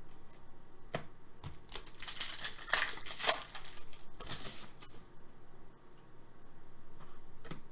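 Trading-card pack wrapper crinkling and tearing in two bursts, the first about two seconds in and lasting over a second, the second shorter, with a few light taps around them.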